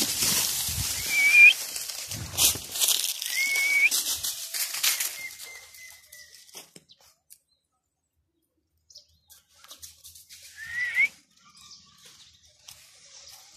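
Dry leaf litter rustling and crunching underfoot as someone moves quickly through it, with handling knocks, for the first six seconds, then fainter rustles. Several short, high, rising whistle-like calls sound over it, including one longer steady note around four to six seconds in and another short call near eleven seconds.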